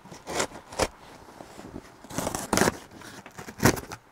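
Cardboard parcel box being cut open with a blade and its flaps pulled apart: several short scrapes and rips of tape and cardboard, the loudest near the end.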